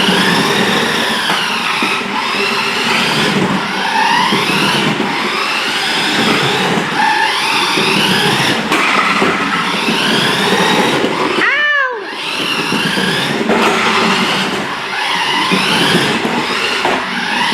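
Toy 1:10 scale Ford GT RC car's electric drive motor whining, its pitch rising and falling every second or two as the throttle is pulsed. A short high tone rises and falls about twelve seconds in.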